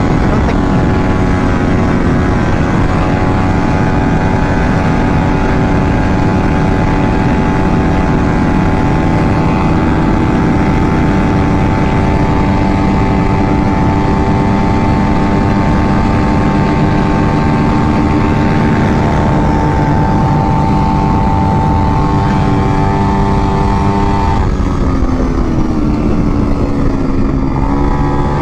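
Honda ADV 150 scooter's single-cylinder engine running flat out at high, near-steady revs, its note creeping slowly upward. About four seconds from the end the throttle closes and the note drops and slides down as the scooter slows, then picks up again near the end.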